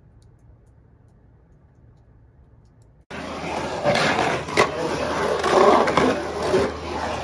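A faint low hiss, then, about three seconds in, skateboard wheels rolling loud and rough on a concrete bowl, with a few sharp clacks of the board.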